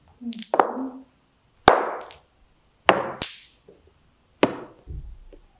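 Small stones of the toptash game clacking and knocking as they are tossed, caught and scooped off a rug: four sharp clicks about a second apart, with a duller thump near the end.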